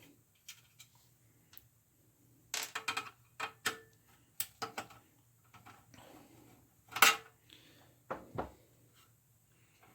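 Scattered clicks, clinks and knocks of hard metal and plastic parts being handled while taking apart a Macintosh Classic, with a cluster of clicks a few seconds in and one louder knock about seven seconds in.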